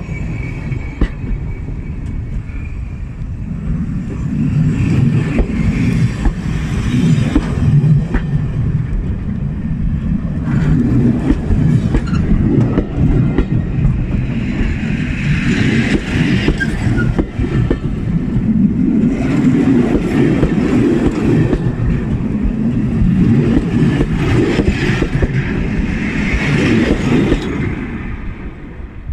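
A heritage train's carriages rolling past close by: a steady rumble of wheels on the rails with small clicks over the rail joints, and a higher-pitched squeal rising above it twice, midway and near the end. The rumble falls away near the end as the train clears.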